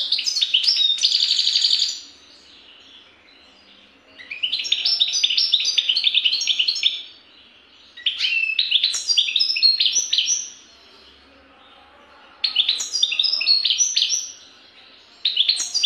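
European goldfinch singing: bouts of rapid, high twittering notes and trills, each two to three seconds long, with short pauses between them, five bouts in all.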